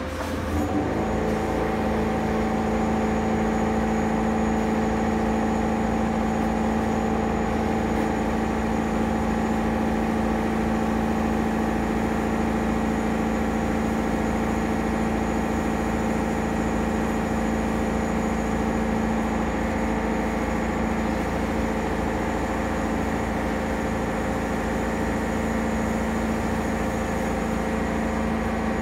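Powder-coating setup running while an electrostatic powder gun sprays: a steady machine hum that steps up about half a second in and then holds level.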